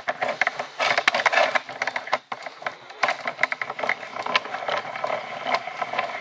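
Handling noise: a dense, irregular run of small clicks, taps and crackles.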